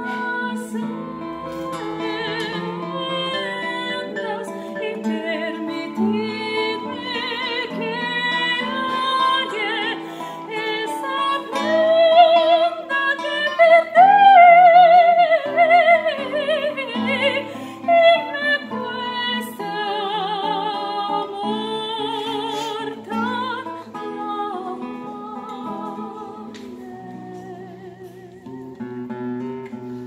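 A woman singing in a classical style with wide vibrato, accompanied by a plucked classical guitar. Her voice swells to its loudest, held high notes about midway, then eases off.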